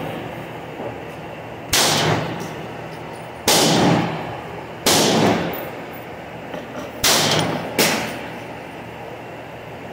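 Hi-Point .380 pistol fired five times at an uneven pace, each shot sharp and followed by a long echoing tail under a covered range roof. The last two shots come less than a second apart.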